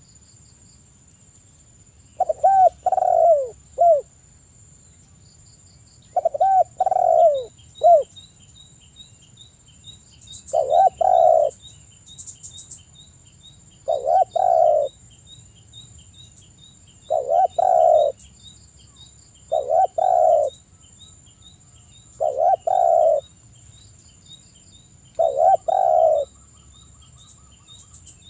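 Spotted dove cooing in repeated phrases, one about every three seconds. The first few phrases have three or four notes, and the later ones are shorter, two-part coos.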